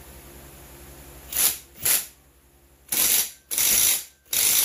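Ratchet wrench clicking in five short strokes, tightening the clutch on a McCulloch 10-10 chainsaw engine whose piston is blocked by a spark plug stop in the cylinder.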